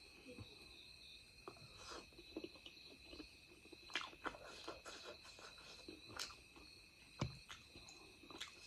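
A person eating chicken curry: faint chewing and mouth smacks with scattered small clicks, over a steady faint high-pitched tone.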